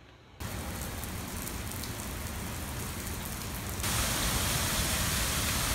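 Steady rush of water from a tiered park fountain, its water falling and splashing into the basin. It steps up louder about four seconds in.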